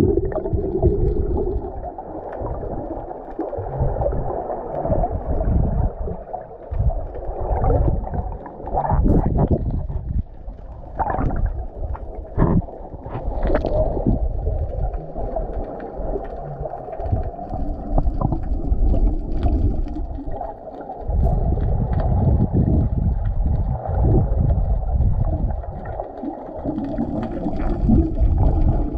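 Muffled underwater rushing and gurgling of water heard through an action camera's waterproof housing, swelling and fading as the swimmer moves, with a few sharp clicks in the middle.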